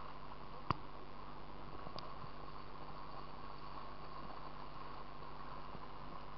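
Steady rush of river water at the camera, with one sharp click a little under a second in and a fainter one about two seconds in.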